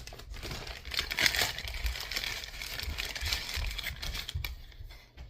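Packaging being handled and opened: continuous crinkling and rustling with small crackles, louder about a second in and again around three seconds in, dying down near the end.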